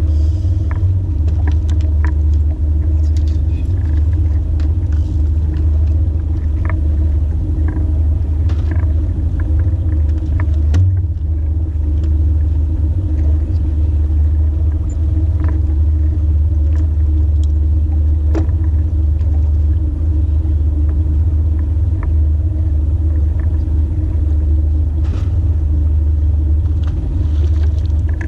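Boat motor running steadily at trolling speed, a continuous low rumble with a steady hum over it, and a few faint knocks and clicks of gear on the boat.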